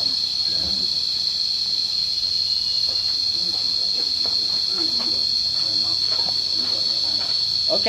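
Cicadas in the trees droning together in one steady, high-pitched buzz.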